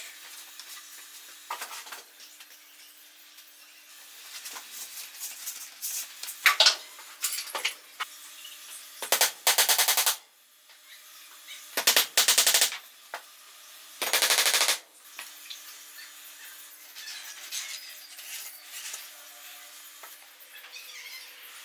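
Workshop tool noise on wood: scattered knocks and scraping, then three short bursts of a fast, evenly pulsing power tool in the middle stretch, over a faint steady hum.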